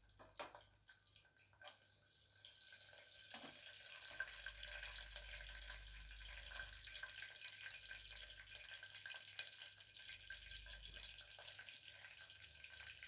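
Green chillies, curry leaves and cumin seeds frying in hot oil in a pan, a tempering (tadka). A few clicks at first, then a faint, steady crackling sizzle that builds from about two and a half seconds in.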